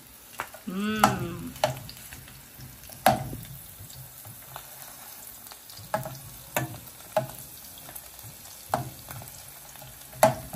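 Sliced red onions sizzling as they fry in oil in a small non-stick pot, with a metal spoon stirring them and scraping and tapping against the pan at irregular intervals.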